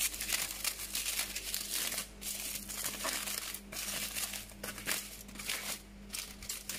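Aluminium foil crinkling and crumpling in irregular rustles as hands unwrap a foil packet of food.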